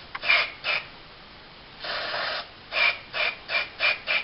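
Aerosol spray can of Gun Scrubber gun-cleaning solvent hissing in short bursts, about seven quick sprays with one longer spray about two seconds in, as a small pistol part is sprayed clean.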